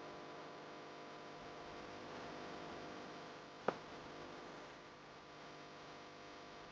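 A faint steady hum, broken once by a single sharp click a little past halfway.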